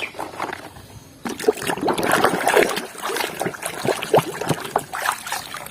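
Water trickling and splashing as a toy vehicle is washed, starting about a second in.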